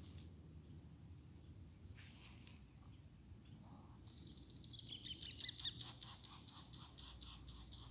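Insects trilling steadily in a fast, even pulse. From about four seconds in, small birds join with rapid, chirpy runs of notes.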